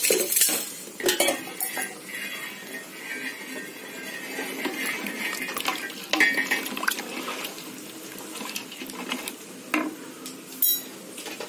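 A spatula stirring a thin curry in a steel pot, knocking and scraping against the pot with irregular clinks.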